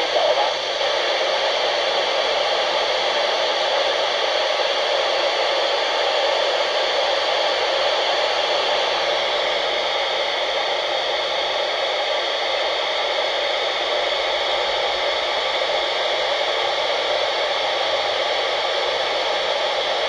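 Handheld ham radio transceiver tuned to 29.6 MHz FM, its speaker giving a steady hiss of static with no voice coming through.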